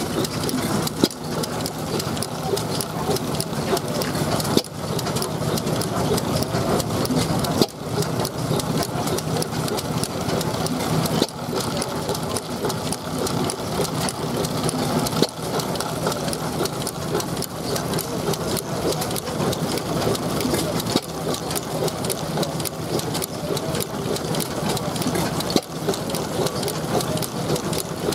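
1906 Fairbanks Morse 2 hp stationary engine with low-tension friction-drive ignition running: a steady rapid mechanical clatter, with a sharp bang every three to six seconds.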